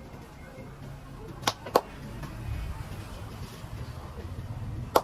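Sharp hand slaps of a barber's massage: a quick pair about a second and a half in, and another near the end, over a low steady background hum.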